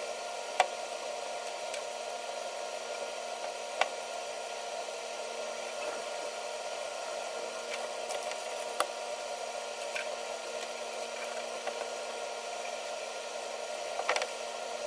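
Electric fan running with a steady whir and hum. A few sharp clicks come at scattered moments, the loudest less than a second in.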